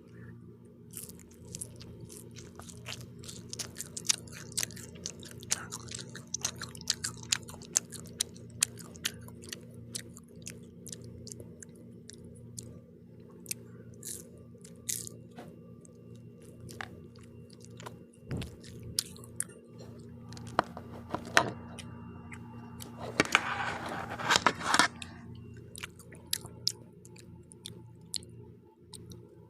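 Close-up chewing and biting of pizza, with many sharp crunches and mouth clicks and a louder, denser stretch of crunching about two-thirds of the way through. A steady low hum runs underneath.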